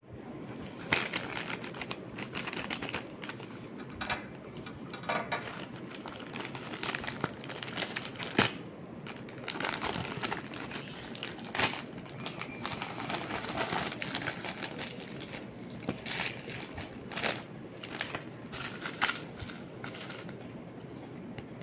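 Plastic courier mailer bag crinkling and rustling as it is handled and pulled open, then bubble wrap packaging crackling, with many sharp crackles throughout.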